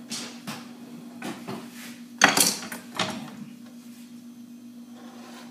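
Kitchen clatter: a handful of knocks and clinks from utensils, pans and a cutting board being handled on the counter, the loudest, ringing clink about two seconds in. A steady low hum runs underneath.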